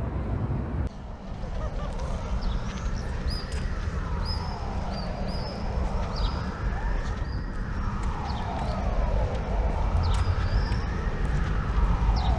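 A siren wailing in the distance, its pitch rising and falling slowly about three times, over a steady low rumble. Birds chirp in short high calls on top.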